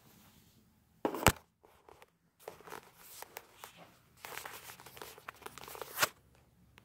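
Handling noise from a phone being picked up and moved about: a loud knock about a second in, then rustling and rubbing against the microphone, ending in another sharp knock near the end.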